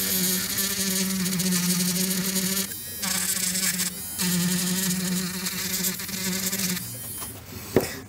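A steady electric buzz, stopping briefly twice near the middle and cutting out near the end.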